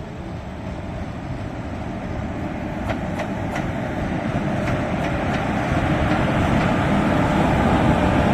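Indian Railways electric locomotive and passenger coaches approaching and passing close by. The rumble grows steadily louder, with a few sharp clicks about three to five seconds in.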